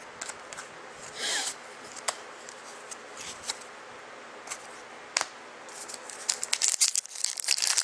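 Trading cards and packaging being handled by hand: scattered light clicks and short rustles, then from about six seconds in a dense crinkling, as of a foil card pack wrapper being torn open.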